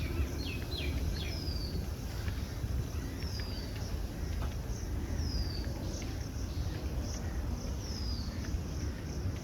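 A bird repeating a short high whistle that slides down in pitch, about once every second and a half, with a few other short chirps in the first second or so, over a steady low rumble.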